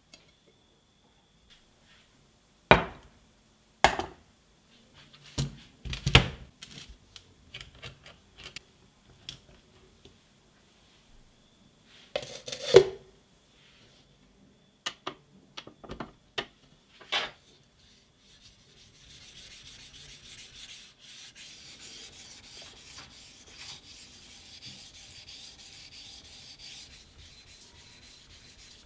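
A few sharp knocks and clatters of equipment being set down on a metal tray. After a pause comes a steady scraping: a Japanese kitchen knife's hard steel blade drawn over a wet whetstone.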